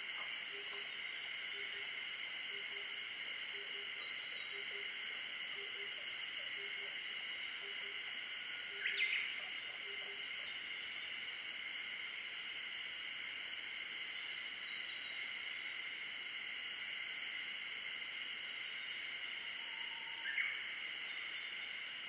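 Forest pond soundscape: a steady high-pitched chorus of calling animals, with a low call repeating about twice a second for the first ten seconds. A loud, brief rising bird call comes about nine seconds in and again near the end.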